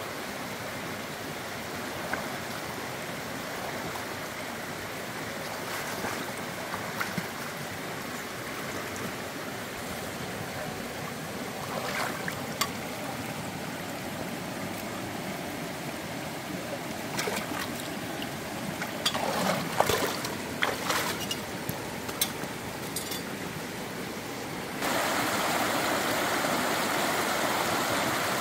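Steady rush of flowing stream water, with scattered sharp clicks and cracks partway through. Near the end the water suddenly becomes louder.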